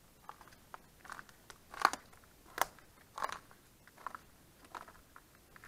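Footsteps crunching on dry leaf litter and twigs, an uneven walking rhythm of crisp crackles, one step louder a little under two seconds in.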